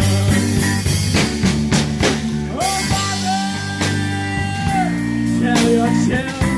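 Live band playing blues-rock, with drums, bass guitar and electric guitar, and a long held note in the middle that scoops up at its start and falls away at its end.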